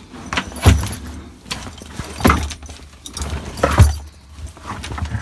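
A tack box knocked and shoved into a horse float's storage cupboard: three heavy thuds about a second and a half apart, with rattling and smaller clicks between them.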